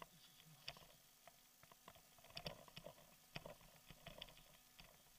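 Faint, irregular clicks and rattles of a bicycle rolling over a rough dirt road, the bike and its handlebar-mounted camera jolting on the bumps, with a busier run of clicks a little past halfway.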